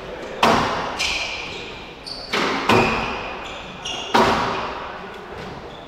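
Squash rally: the ball is struck by rackets and smacks against the court walls, a sharp hit roughly every one and a half seconds, each ringing on in the court's echo. Short squeaks of shoes on the court floor come between the hits.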